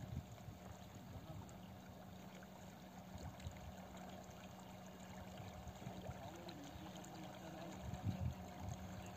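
Faint lakeside ambience: light water sounds over a low, uneven rumble.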